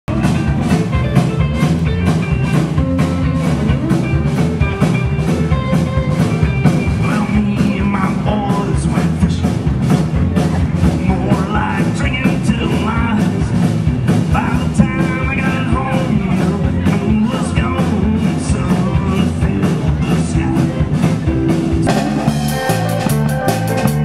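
Rock band playing live: electric guitar over bass and a drum kit keeping a steady beat. About 22 seconds in, it cuts to a different, drum-heavy song.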